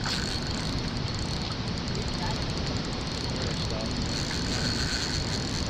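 Steady rush of river water pouring over the dam spillway and running past, an even roar with no breaks.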